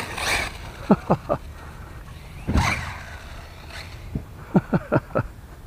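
Arrma Typhon RC buggy's brushless motor blipped in short quick chirps, three about a second in and five more near the end. A brief rush of noise comes at the start and another about two and a half seconds in. The driver calls it a funky noise.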